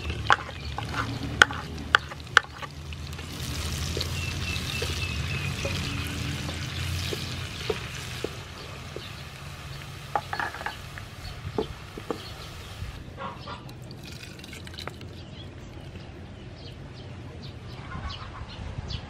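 Chopped green onions hitting hot soybean oil in a frying pan and sizzling, the sizzle strongest for about ten seconds and then dying down. A few sharp knocks near the start as the onions are tipped off a wooden board into the pan.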